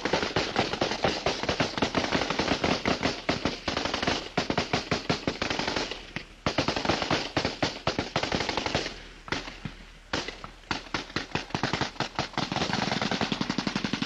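Automatic weapons fire in long rapid bursts, with brief lulls about six and ten seconds in and a very fast, continuous burst near the end.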